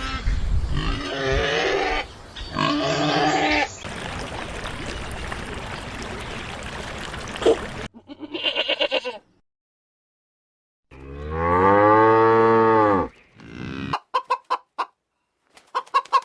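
A string of farm animal calls. It opens with a few pitched animal calls, and about two-thirds of the way through a cow gives one long, low moo that rises and then falls. Near the end come fast, short clucks from a chicken.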